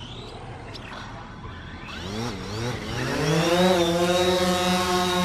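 DJI Phantom 4 quadcopter's motors and propellers buzzing, rising in pitch as they speed up and then holding one steady, even pitch as it hovers.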